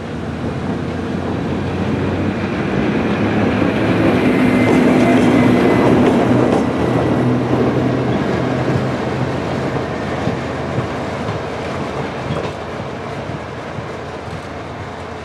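SNCF BB 63500-series diesel-electric locomotive (BB 64047) passing close by: its diesel engine drone builds as it approaches, is loudest about five seconds in, then fades as it runs away along the track.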